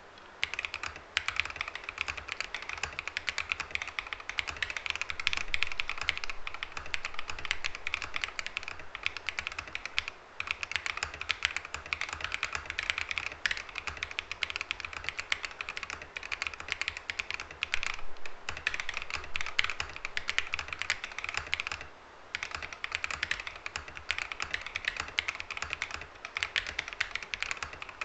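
Fast, continuous typing on a Redragon K556 mechanical keyboard with lubed Akko Lavender Purple tactile switches and PBT keycaps, in a foam- and tape-modded case. The keystrokes come in a dense run of clacks, with brief pauses about a third of the way in and again about three-quarters through.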